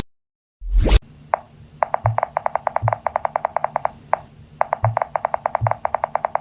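Rapid runs of short, identical pitched pings, about ten a second, in two bursts of roughly two seconds each with single pings between them. A few soft low thuds sit under the pings. A whoosh ends about a second in.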